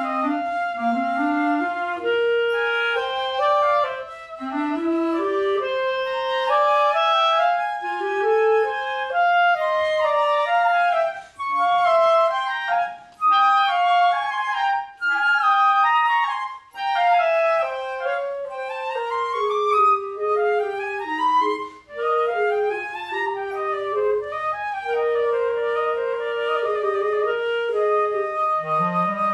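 Flute and clarinet playing a duet: both parts move in quick running notes and arpeggios, the clarinet sweeping up from its low register in climbing runs. A few short breaks come in the middle.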